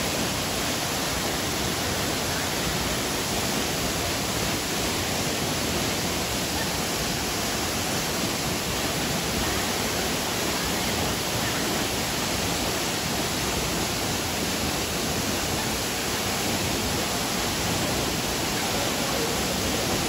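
Waterfall plunging into a pool: a steady, unbroken rush of falling water.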